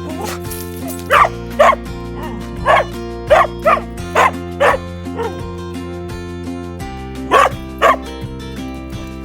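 A dog barking: about nine short barks, mostly in quick pairs, over steady background music.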